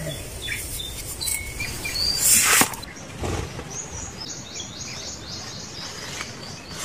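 Small wild birds chirping in the trees: a few short high chirps, a brief loud burst of noise a little over two seconds in, then a quick run of high chirps at about five a second around the middle.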